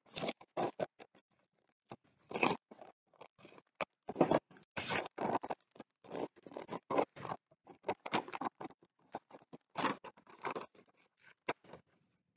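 Paper rustling and crinkling in short, irregular bursts as bid documents are handled and leafed through.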